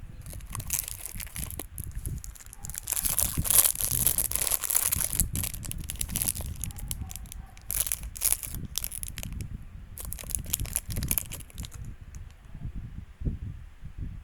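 Blind-bag packaging being torn open and crinkled by hand, in irregular bursts of rustling, loudest about three to five seconds in and dying down near the end.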